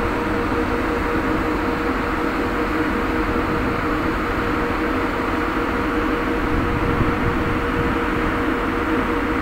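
Steady drone of a ship's deck machinery and ventilation, with a constant whine, over an uneven low rumble of wind on the microphone.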